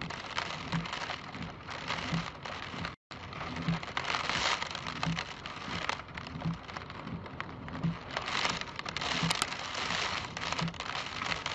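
Wind-driven hurricane rain pattering and crackling against a window pane, with gusts of wind swelling the noise twice.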